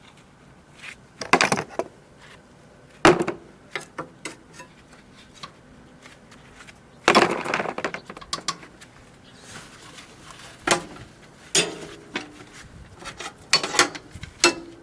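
Irregular knocks and clatters of hand tools and metal parts being handled, some ringing briefly, with the loudest clusters about a second, three seconds and seven seconds in.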